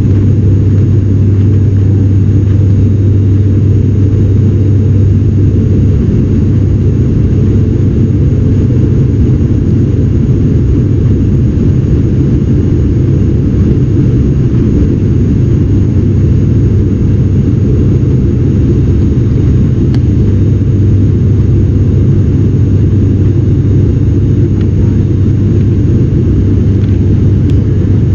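ATR turboprop airliner's engines and propellers droning steadily in flight, heard from inside the cabin beside the propeller: a loud, even drone with a deep, constant hum from the blades.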